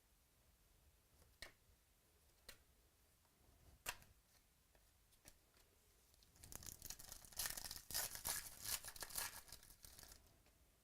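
Trading-card pack wrapper being torn open and crinkled: a dense crackle lasting about four seconds in the second half, after a few soft clicks.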